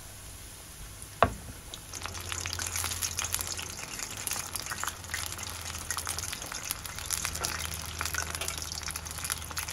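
Batter-coated chicken tempura strips deep-frying in 180 °C oil, the oil sizzling softly at first and then crackling densely from about two seconds in. A single sharp click comes about a second in.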